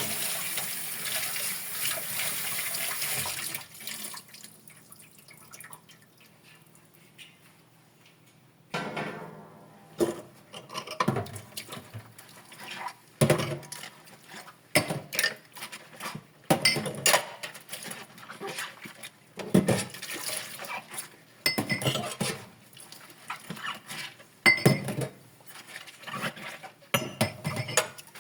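Dishes being washed by hand at a sink. A tap runs steadily for about the first four seconds and then stops. After a few seconds of near quiet comes irregular clattering and clinking of dishes handled in water, with occasional splashes.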